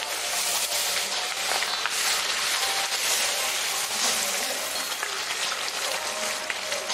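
A masala poori deep-frying in oil heated medium-to-high in a kadhai: a steady sizzle with fine crackling.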